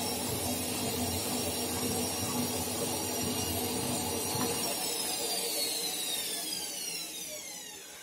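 Bosch Maxx 4 front-loading washing machine on its spin cycle, the drive motor turning the drum normally with its belt back in place. From about halfway through, its whine falls steadily in pitch and the sound fades as the drum winds down.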